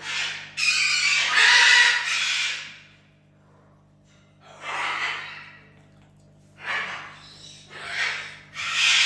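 High-pitched animal calls in separate bursts: a long loud one over the first three seconds, shorter ones about five, seven and eight seconds in, and another starting near the end.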